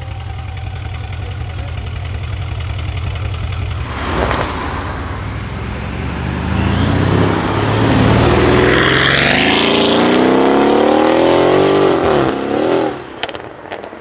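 Mercedes S63 AMG W221's twin-turbo V8 with a custom exhaust idling steadily, then accelerating hard as the car pulls away past, loud, its engine note climbing in pitch for several seconds before dropping away near the end.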